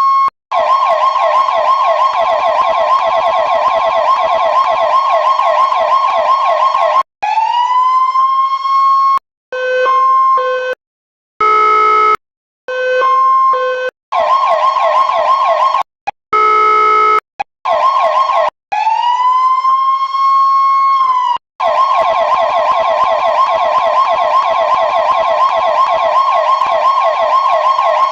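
Electronic emergency-vehicle siren switched through its tones, with abrupt stops between them. It winds up in rising wails to a steady pitch, runs long stretches of a fast warble, gives short two-tone blips, and sounds two brief blasts of an electronic horn about 12 and 17 seconds in.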